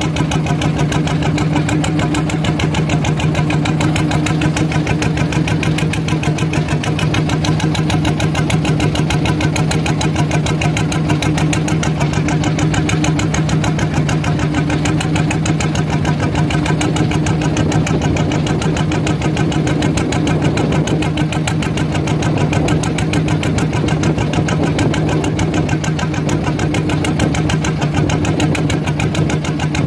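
Small fishing boat's engine running steadily at constant speed, a continuous fast-pulsing hum.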